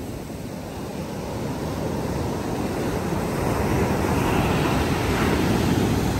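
Arabian Sea surf: waves breaking and washing up the beach, a steady rush that swells over the first few seconds.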